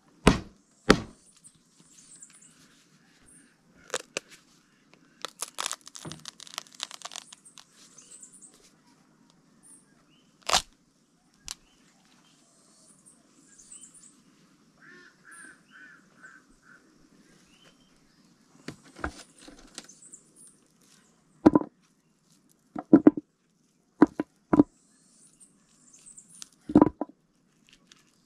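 A ripe cacao pod being broken open by hand: sharp cracks and tearing as the thick husk splits, then scattered knocks and rustling as the beans in their pulp are pulled out of the husk halves, the loudest knocks coming in a cluster near the end.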